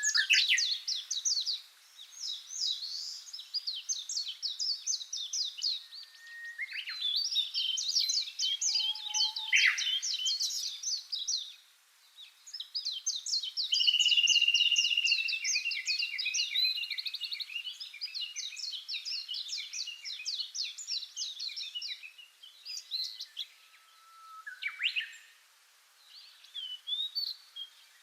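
Chorus of songbirds chirping and trilling in fast, overlapping phrases, with a brief lull about twelve seconds in and a held whistled note just after it.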